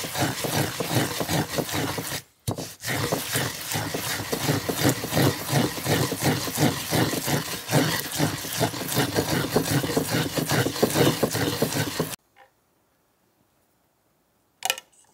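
Sesame seeds being ground with a wooden pestle in a ridged suribachi mortar: a quick, rhythmic gritty scraping. It breaks off briefly about two seconds in and stops suddenly about twelve seconds in.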